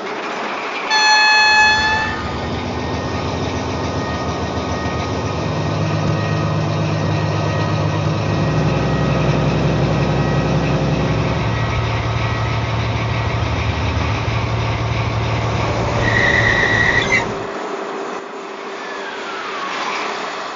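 Digital sound decoder of an H0 model DB class 294 diesel shunting locomotive: a horn blast about a second in, then the diesel engine sound running and revving up as the locomotive moves off. A short high tone sounds near the end, after which the engine sound drops back.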